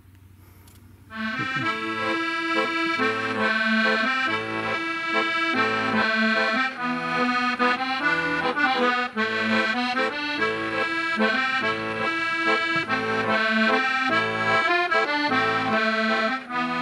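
Accordion playing a traditional-style instrumental tune, a melody over a regular repeating bass beat, starting about a second in.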